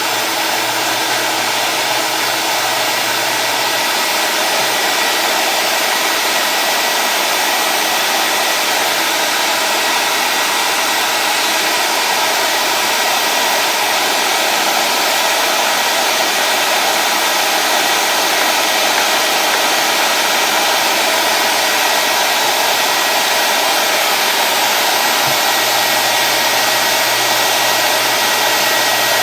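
Commercial vacuum cleaner motor running steadily at full speed: a loud, even rush of air with a high whine over it. A low hum underneath fades about four seconds in and comes back near the end.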